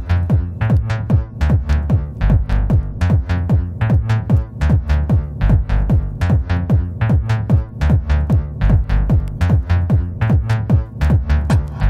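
Electronic trance-techno track: a fast, steady kick drum beat over a pulsing bass line, with no break.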